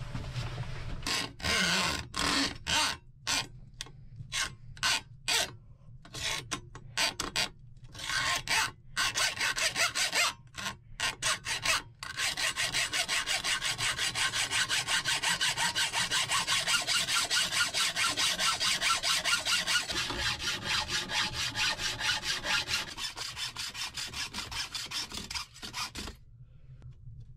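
Rhythmic rasping strokes of hand-tool work. It comes in short separate bursts for the first dozen seconds, then runs as a fast, even series of strokes that stops shortly before the end.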